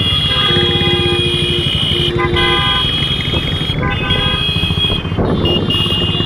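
Several vehicle horns honking at once in overlapping held blasts, some lasting about a second, over the steady rumble of motorcycle and car engines.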